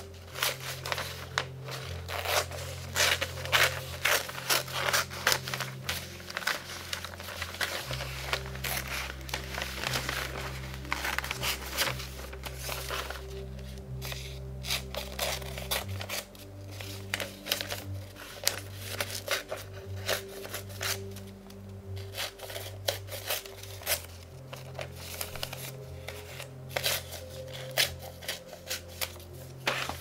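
Sunday newspaper coupon pages rustling and crinkling in dense, irregular bursts as they are leafed through and cut out with scissors, over soft background music with low held notes that change every several seconds.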